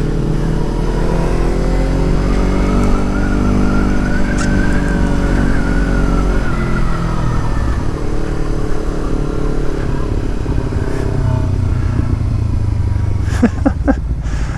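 Motorcycle engine under way, its pitch rising for several seconds as it is revved up, then falling away. It is a bike the rider finds has no grunt and must be shifted often. A few sharp clicks near the end.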